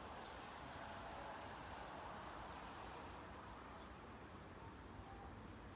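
Faint, steady outdoor wash of noise in wet weather, with a few faint high bird chirps.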